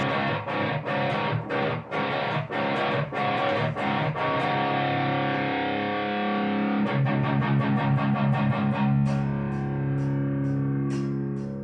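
Distorted electric guitar, an Ibanez RG2EX2 played through a Joyo Bantamp Zombie II head with a Tube Screamer boost, playing a heavy alt-rock riff: short, choppy chords in the first half, then longer ringing chords from about the middle.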